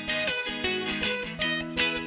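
Background music: a guitar picking out a melody in separate plucked notes.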